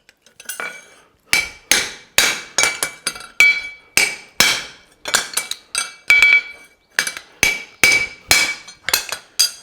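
Forging hammer striking a steel horseshoe on an anvil, about two blows a second with a metallic ring after each, starting about a second in.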